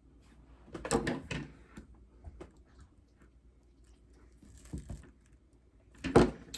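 Knocks and rattles of tableware and food containers being handled, a cluster about a second in, a softer one later and a sharp knock near the end.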